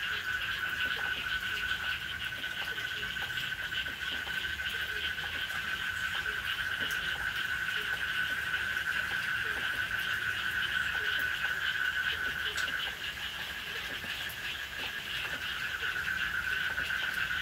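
Steady night chorus of frogs, a continuous high-pitched calling that carries on without a break.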